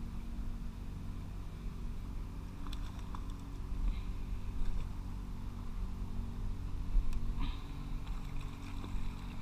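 Steady low rumble of wind on the camera microphone, with a few faint clicks from a spinning reel being handled.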